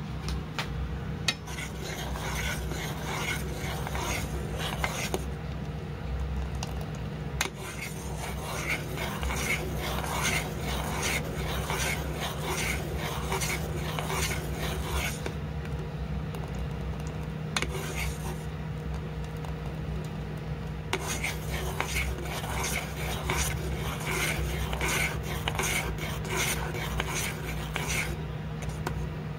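A spoon stirring orange sauce in a saucepan on a gas burner: repeated quick scrapes and light clicks against the pan, with a couple of short lulls. The sauce is orange juice thickened with cornstarch, being heated and stirred until it thickens. A steady low hum runs underneath.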